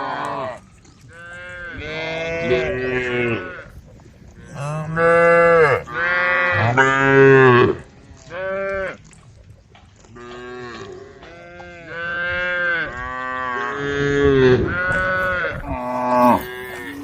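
Several cows mooing one after another, about nine long calls whose pitch bends, some overlapping at different pitches. The loudest calls come around the middle.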